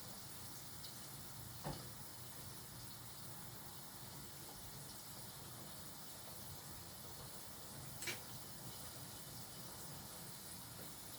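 Faint, steady hiss of food cooking on the stove, with two light clicks, one near the start and one about eight seconds in.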